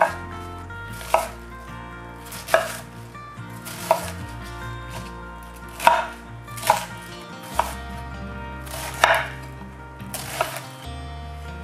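Chef's knife slicing a head of cabbage on a bamboo cutting board: about nine separate sharp chops, spaced irregularly one to two seconds apart.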